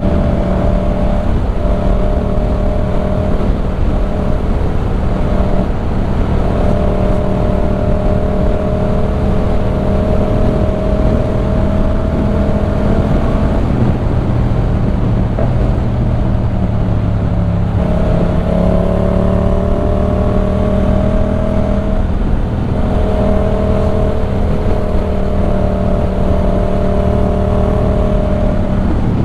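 Yamaha MT-07 689 cc parallel-twin engine running on the move through a LeoVince One Evo full-system exhaust, its note climbing slowly under steady throttle, breaking off about halfway through and then picking up again.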